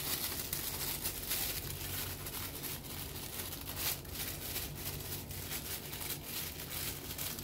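Seasoning being shaken from a spice shaker onto chicken drumsticks in a foil tray: irregular soft rattling ticks, over a low steady hum.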